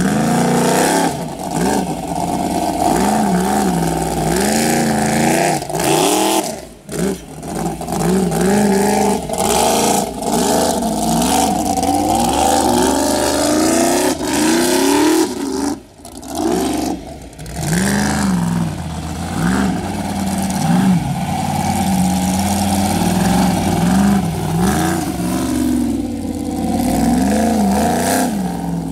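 Formula Offroad buggy's engine revving hard over and over, the pitch swinging up and down as the throttle is worked, with a few brief drops in the sound.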